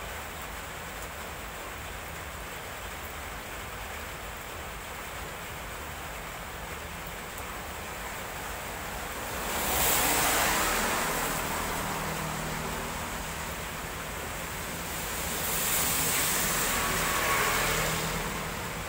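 Steady hiss of rain falling on a wet road. Twice, about ten seconds in and again near the end, a passing vehicle's tyres swish through the water on the road, swelling louder and fading.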